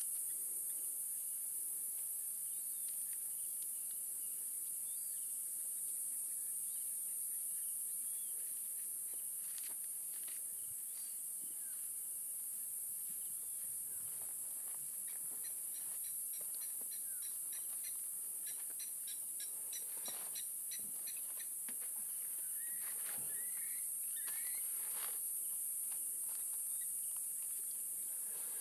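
Steady high-pitched chorus of insects, most likely crickets, running throughout. Scattered short calls sound over it: a run of quick, high ticking calls about halfway through, then a few short chirps near the end.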